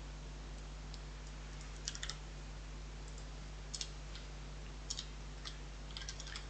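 Computer keyboard typing: a few scattered keystrokes and short clusters of key presses, over a steady low hum.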